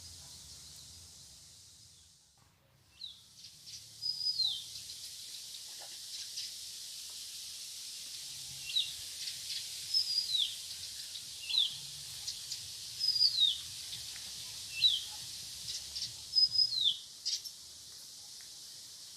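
A songbird calling, about eight short whistled notes that each slide sharply downward, spaced a second or more apart, over a steady high hiss of outdoor background noise. The hiss briefly fades out and comes back near the start.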